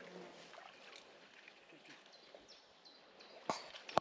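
Faint outdoor riverbank ambience: a steady soft hiss with a fly buzzing at the start and a few short, high bird chirps. Near the end come two sharp clicks, the loudest sounds.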